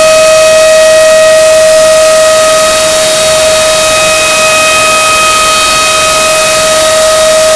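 A brown chicken's scream, the jumpscare meme sound effect, played very loud and distorted: one unbroken screech held at a single steady pitch, with a harsh hiss over it.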